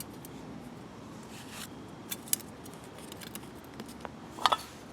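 Small metal parts and hand tools being handled: scattered light clicks and clinks, the loudest pair about four and a half seconds in.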